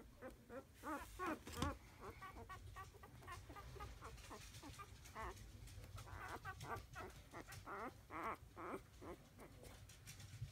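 Very young Havanese puppies squeaking: a continuous run of short, high squeaks, several a second, louder in patches.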